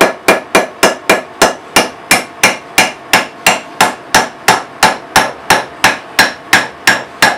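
A hammer driving a round wedge into the eye end of a refitted axe handle, which spreads the wood to lock the head on. A steady run of sharp, evenly spaced strikes, about three a second.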